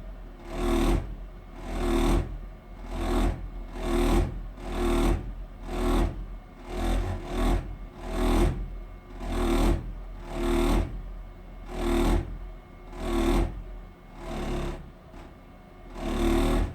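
Gas boiler vibrating with a loud rhythmic pulsing, about one throb a second over a steady low hum, the pulses spacing out slightly near the end.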